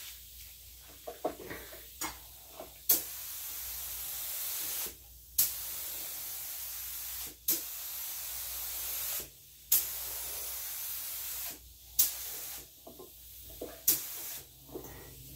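SprayIt 33000 LVLP spray gun hissing in about five short bursts of a second or two each, each starting with a sharp click: compressed air and paint spraying in passes.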